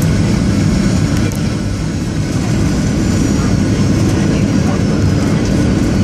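Jet airliner cabin noise during the landing roll: a steady low rumble of engines and rushing air, with a faint high whine slowly falling in pitch.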